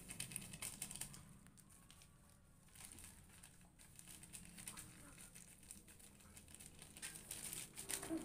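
Plastic snack sachets crinkling as the snack inside is crushed by hand and crumbled into a glass bowl. There are faint irregular crackles, busiest at the start and again near the end.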